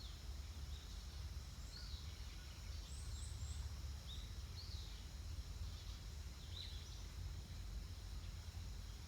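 Outdoor nature ambience: a steady high insect drone with short bird chirps every half second to second, over a constant low rumble.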